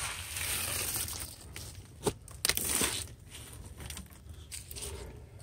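Hands scooping spilled shelled corn off leafy ground, the dry kernels rustling and crunching, with a few sharp clicks and a short rattle about two to three seconds in.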